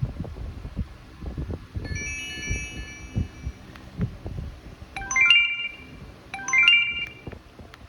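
Mobiistar B242i feature phone playing its electronic alert tones: a held chime-like chord about two seconds in, then the same quick run of high notes played twice. Low rustling and small clicks from the phone being handled run underneath.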